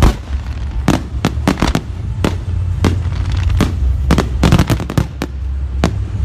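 Fireworks barrage: a rapid, irregular string of sharp bangs and cracks from bursting shells over a steady low rumble, with the loudest bang right at the start.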